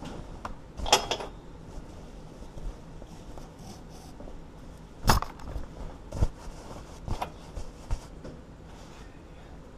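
A handful of sharp metallic clanks and clinks, two louder ones about a second in and near the middle, then lighter knocks: steel bolt cutters, padlock and chain being handled and knocking together.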